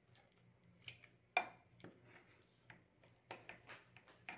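A metal spoon knocking and scraping against a pot as stewed fish and vegetables are scooped out: scattered light clinks, the loudest about a second and a half in, with a quicker run of them near the end.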